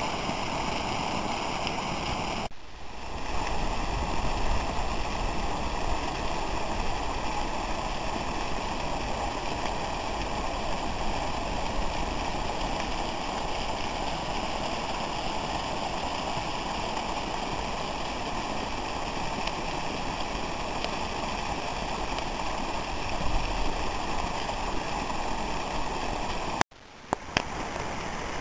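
Steady rushing of hot-spring water running down white travertine terraces. The sound dips briefly about two and a half seconds in, then cuts out near the end with a couple of clicks.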